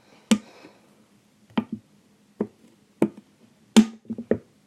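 Homemade slime being squeezed and stretched in the hands, giving a string of sharp, irregular clicks and pops as air pockets in it burst.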